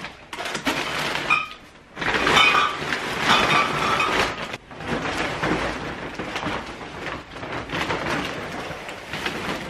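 Plastic carrier bags and crisp and snack packets rustling and crinkling as the packed hamper bags are handled and lifted, a dense crackle with brief pauses, loudest a couple of seconds in.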